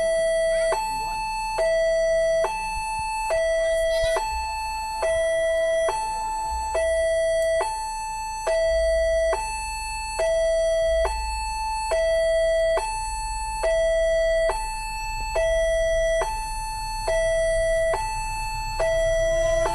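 Railway level-crossing warning alarm sounding: an electronic two-tone signal swapping evenly between a lower and a higher tone, each held just under a second. It warns that a train is approaching.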